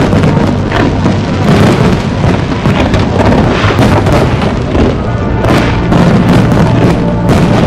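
Fireworks display: a dense barrage of booming bursts and sharp bangs in quick succession, over loud music.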